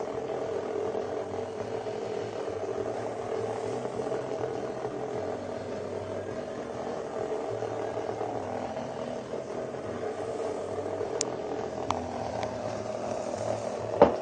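Cheap knock-off Hexbug Nano vibrating bug toys buzzing steadily as their vibration motors drive them around inside a plastic laundry basket. A few faint clicks come near the end, then one sharp knock.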